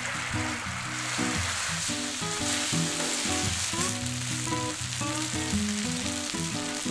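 Cooked rice sizzling as it is poured into a hot nonstick frying pan of sauce and sausage slices and stirred through with a spatula, a steady frying hiss. Soft guitar background music plays underneath.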